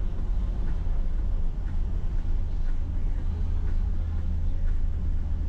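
Steady low rumble of a camper truck driving through a road tunnel, heard from inside the cab.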